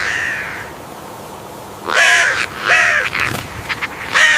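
A bird giving short, harsh calls: the end of one at the start, then three more, two close together about two seconds in and one near the end.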